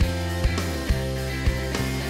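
Background music with a steady drum beat, about two strikes a second, over held bass notes.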